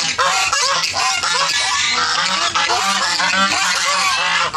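A flock of geese honking, many short calls overlapping several times a second without a break.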